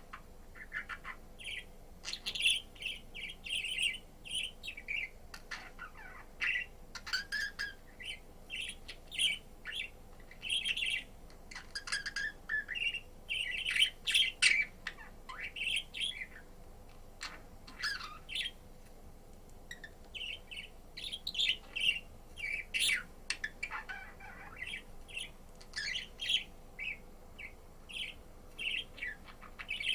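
Budgerigar chirping and warbling in a run of short, high chirps, with a brief pause about twenty seconds in.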